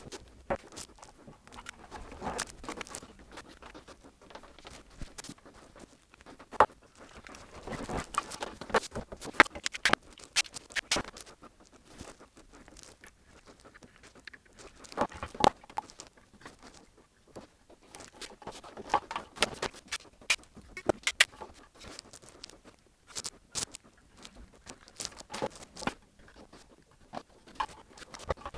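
Irregular clicks, taps and soft rustling, like small parts and tools being handled on a workbench, coming in clusters with quieter gaps between.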